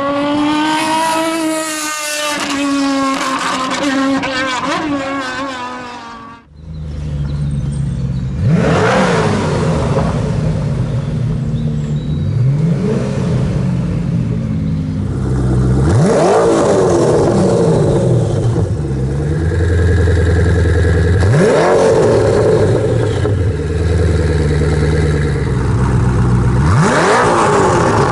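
Supercar engines being revved while stationary. First a high-pitched engine note rises and falls for about six seconds. After a sudden cut, a deeper-sounding engine idles with a low rumble and is blipped five times, each rev sharply rising and falling back.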